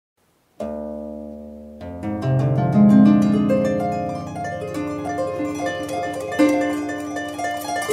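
Solo harp music: a chord rings out and fades about half a second in, then from about two seconds in a gentle melody of plucked notes over held bass notes.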